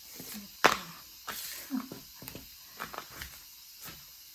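Handling of a diamond painting kit and its packaging: a sharp knock about half a second in, followed by rustling and light taps.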